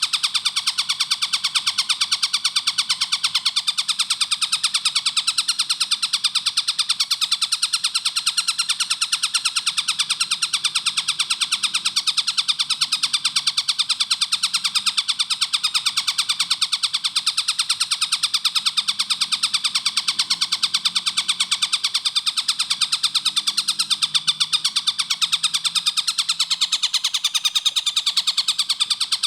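Collared kingfisher (tengkek buto) calling a fast, unbroken run of sharp, even, high notes.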